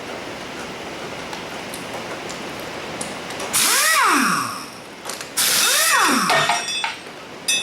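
Power impact wrench run in two bursts on the engine's bolts, its motor pitch rising and then falling each time, with a shorter burst near the end. Steady rain drums on the shop's metal roof underneath.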